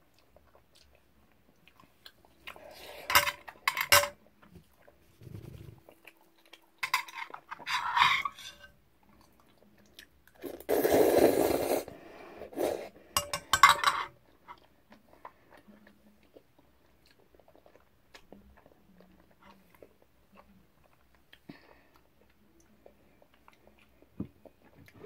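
A person eating jjajang ramyeon noodles close to the microphone: several loud bursts of slurping and chewing in the first half, the longest a sustained slurp of about a second and a half, then only faint small mouth sounds.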